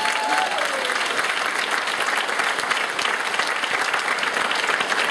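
Audience applauding steadily, a dense continuous patter of many hands clapping.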